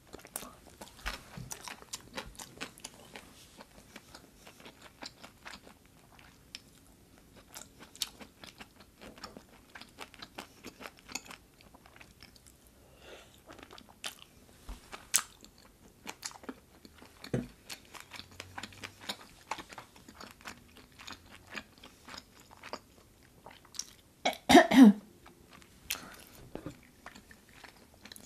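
Close-miked chewing and biting of braised short ribs and vegetables, with many small wet clicks and crunches. Near the end comes one loud, short cough.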